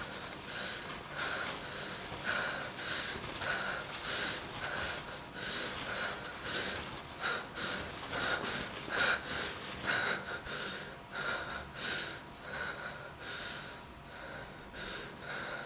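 Heavy, rhythmic breathing, like panting, about two breaths a second.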